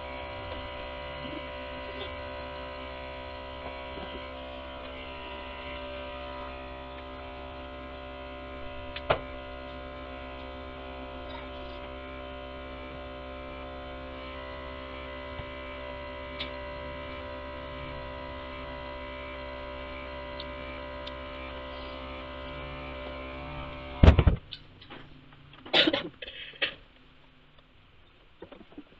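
Small electric milking pump running with a steady hum, then switched off about 24 seconds in with a loud thump as goat milking ends; a few sharp knocks follow.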